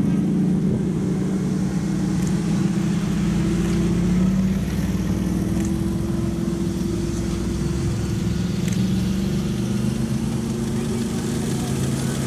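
Engines of classic cars driving slowly past one after another, among them DeLorean DMC-12s and a vintage open tourer. A steady low engine note shifts in pitch around the middle as one car gives way to the next.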